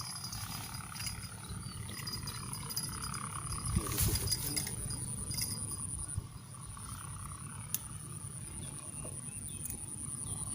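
Steady high-pitched buzzing of insects, easing a little about six seconds in, with a single louder knock about four seconds in.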